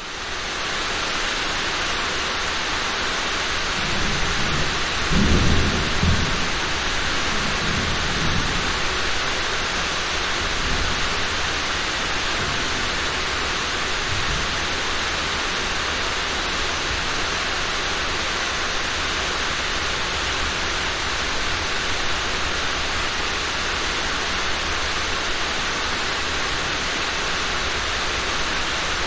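Steady rain hissing without a break, with a low rumble of thunder rolling about four to eight seconds in, loudest around five seconds.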